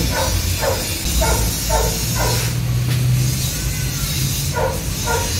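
Dog barking repeatedly in short barks, about six in the first two seconds, then a pause and two more near the end.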